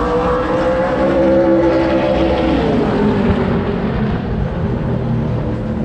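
Race car engines running hard on the track, several engine notes rising and then falling in pitch over a few seconds as the cars go by.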